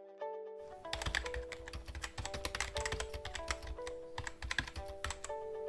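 Rapid typing on a laptop keyboard, a dense run of key clicks that starts about half a second in, over a simple melody of short chiming notes.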